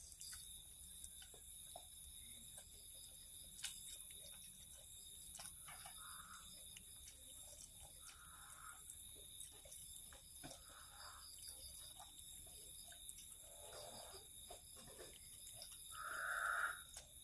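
Kitten eating a piece of food, making short raspy sounds every two to three seconds as it chews. The loudest of these comes near the end.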